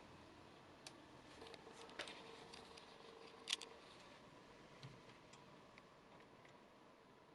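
Faint, scattered clicks and light taps of hands handling desktop PC parts during removal of a graphics card, the sharpest click about three and a half seconds in, over quiet room tone.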